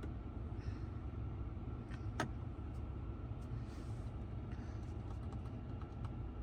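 Cabin noise of a 2023 Ram 1500 Limited pickup on the move: a steady low rumble from the road and the 5.7-litre HEMI V8, with an even hiss of road and wind noise over it. There is one sharp click about two seconds in.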